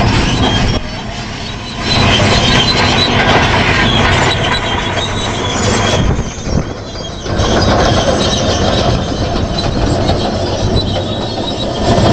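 Large Caterpillar crawler bulldozer working, its steel tracks squealing over the running diesel engine.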